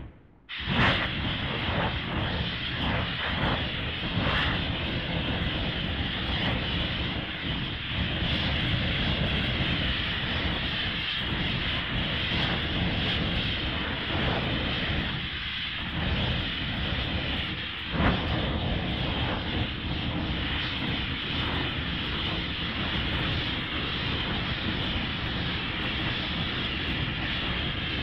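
Monster-film sound effect from the Showa Gamera films: a steady, jet-engine-like roar. It starts just after a brief silence and dips briefly a couple of times a little past halfway.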